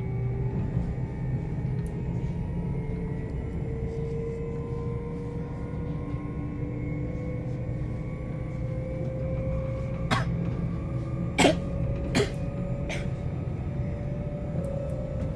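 Inside a moving SOB Traverso, a Stadler FLIRT electric multiple unit: a steady low rumble of the running gear, with electric traction-motor whine climbing slowly in pitch as the train gathers speed. Four short, sharp knocks come between about ten and thirteen seconds in.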